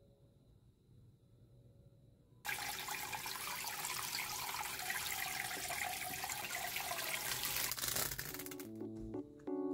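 Tap water running onto baby leaf greens in a plastic colander, a steady rush that starts suddenly about two and a half seconds in and stops around eight seconds. Background music with plucked notes follows near the end.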